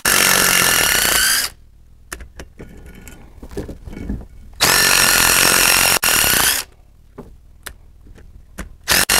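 Handheld power tool with a socket spinning nuts off a hub, running in whining bursts of about two seconds: one ending a second and a half in, another around halfway, and a third starting near the end. Light clinks of metal between the bursts.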